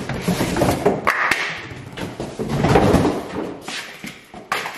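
An empty cardboard shipping box being handled and moved aside: scuffing and rustling with a few sharp knocks and a thump.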